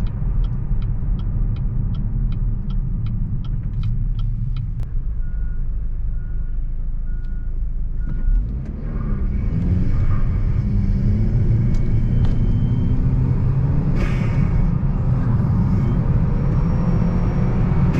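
Buick Regal GS's 2.0-litre LTG turbo four-cylinder heard from inside the cabin while driving, with a K&N cold air intake drawing in air. A steady ticking comes about three times a second for the first few seconds, then the engine note climbs and grows louder as the car accelerates.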